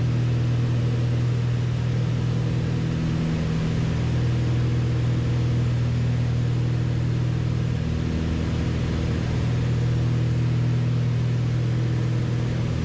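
The twin six-cylinder piston engines and propellers of a Beechcraft Baron B55 running steadily in flight, heard inside the cabin as a constant low hum over a steady rush of noise.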